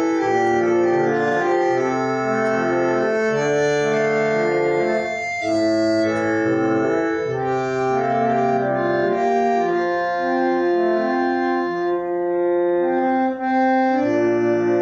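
Organ playing a melody over held chords, the notes sustained and changing every second or so.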